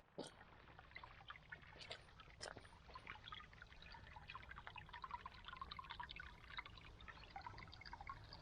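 Near silence with a faint trickle of running water, a scatter of small irregular drips and splashes.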